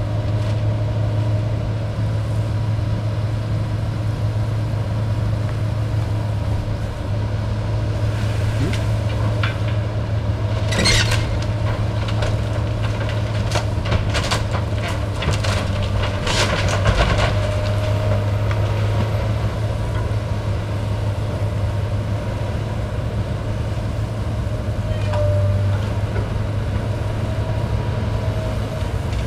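Diesel engine of a tracked hydraulic excavator running steadily under load while it demolishes a house, with a run of cracks and crashes from the structure breaking apart in the middle.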